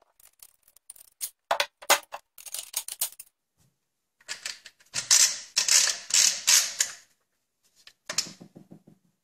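Metal clicks, scrapes and rattling from an IAC Hawk 982 pump-action shotgun being handled as its barrel is put back on. Scattered sharp clicks come first; about halfway through there is a denser run of rapid clatter, and a shorter rattle follows near the end.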